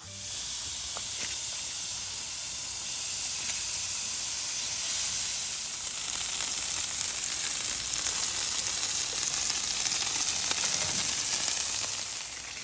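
Hamburger patties sizzling on a grill, a steady crackling hiss that eases off near the end.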